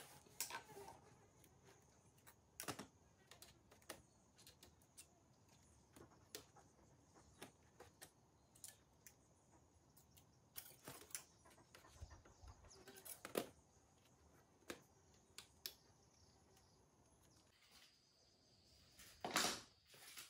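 Faint scattered clicks and rustles of dry bamboo strips being bent and tucked into the rim of a woven bamboo basket, with a louder rustle near the end.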